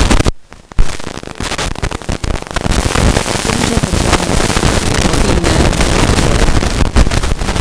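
Loud crackling and rustling noise on a handheld interview microphone, covering the voice. It cuts out for about half a second near the start, then carries on.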